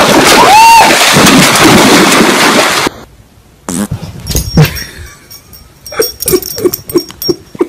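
A dog bounding through shallow lake water, splashing loudly, with a short high cry over the splashing. The splashing cuts off about three seconds in, and near the end comes a quieter run of short, sharp sounds, several a second.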